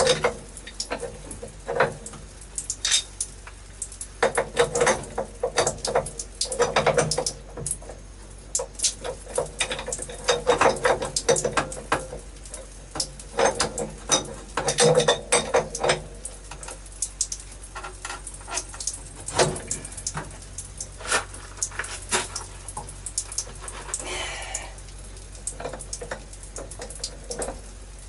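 A metal wrench clicking and clanking against a brass valve and pipe fitting of a solar water heater's plumbing, in irregular bursts of sharp knocks as it is fitted and strained on the valve over and over. The old valve is stuck too stiff to turn.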